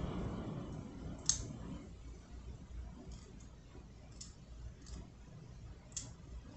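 Small clicks of fingerboard hardware being worked by hand as a lock nut is spun onto a wheel axle. There is one sharp click about a second in, then a few fainter ticks spaced out.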